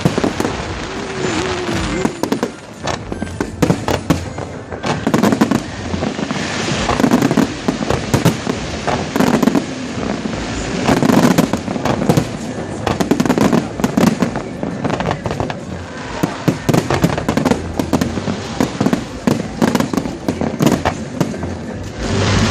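Aerial fireworks display going off: dense crackling and popping, with repeated heavier shell bursts every second or two.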